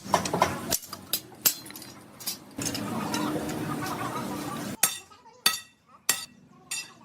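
Hammer blows on a steel leaf spring, each strike a short metallic clang with a ring. The blows come irregularly over a steady background noise at first, then from about five seconds in as a steady beat of roughly three blows every two seconds.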